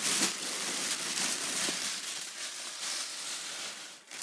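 Tissue paper and plastic air-pillow packing crinkling and rustling as they are pulled out of a cardboard box, dropping off briefly near the end.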